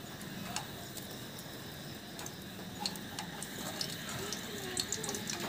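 Scattered light clicks of a steel slotted spoon knocking against a steel pot as fried gulab jamuns are tipped into sugar syrup.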